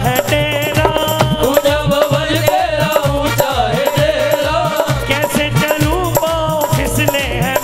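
Live Indian devotional jagran music: an instrumental passage with a fast, steady drum beat, a shaker or rattle keeping time, and a wavering sustained melody line.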